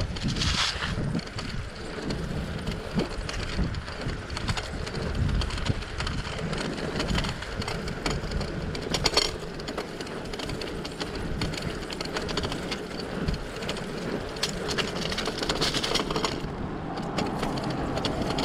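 Bicycle in motion: tyre noise on the road with frequent small clicks and rattles from the bike, over a fluctuating low rumble. There are sharper bursts about half a second in and around nine seconds.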